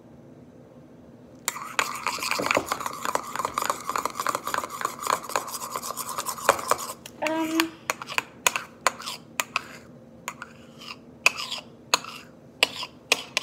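Metal spoon stirring thick soap slime in a ceramic bowl: about a second and a half in, a steady scraping starts and runs for some five seconds, then gives way to separate clinks of the spoon against the bowl.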